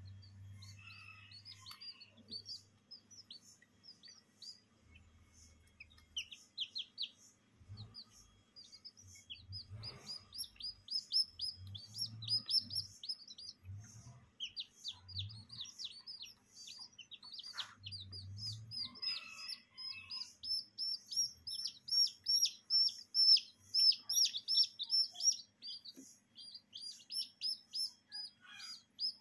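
Week-old bantam chicks peeping: quick runs of short, high, downward-falling peeps, growing busier and louder in the second half.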